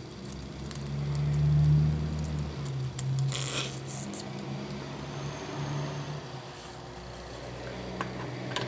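Small steel parts being fitted by hand on a milling machine's handwheel shaft: a washer and the graduated dial collar slid on, with a brief scrape about three seconds in and a few light clicks. A low hum runs underneath and swells in the first couple of seconds.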